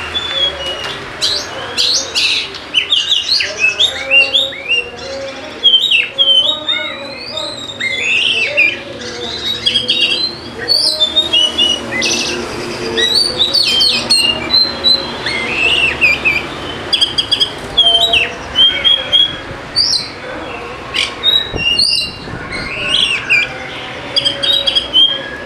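Oriental magpie-robin (kacer) singing vigorously: a rapid, varied run of sharp chirps and rising and falling whistles that carries on without a break.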